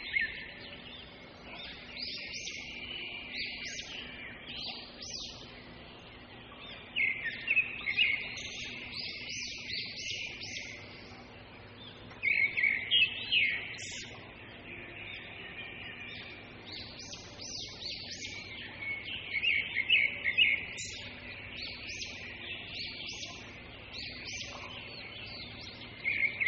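Small birds chirping: quick runs of high chirps come in loud bursts every few seconds, with quieter chirping between.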